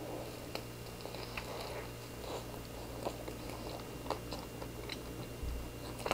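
Biting into a soft microwaved burger and chewing it, faint, with scattered small mouth clicks over a low steady hum.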